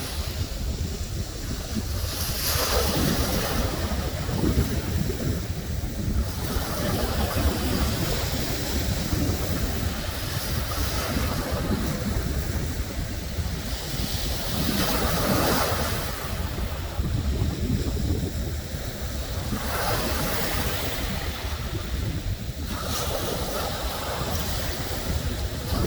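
Wind rumbling on the microphone over the wash of sea waves, swelling and easing at irregular intervals.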